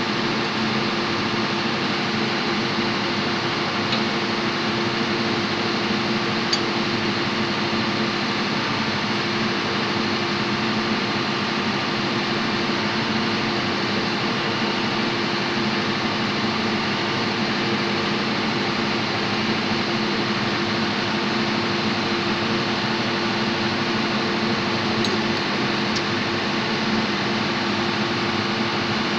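Steady drone of running machinery with a constant low hum, unchanging throughout, with a few faint ticks.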